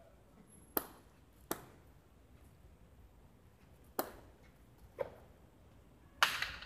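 A hard jai alai pelota cracking against the court's wall and floor and smacking into a wicker cesta during a rally: five sharp impacts a second or more apart, each with a short echo, the loudest near the end.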